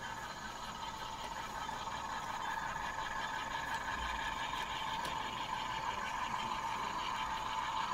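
HO-scale model diesel freight train running past with a string of coal hoppers, making a steady engine-like drone that grows slowly louder.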